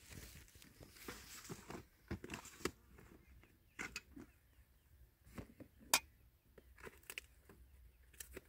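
Scattered light clicks, knocks and rustles of plastic food containers, dishes and a plastic bag being handled, with one sharper click a little past the middle.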